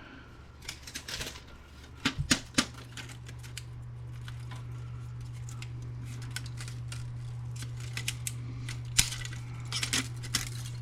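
Scattered clicks, knocks and clatter of plastic and metal printer parts being handled and pried apart during disassembly, with a steady low hum underneath from about two seconds in.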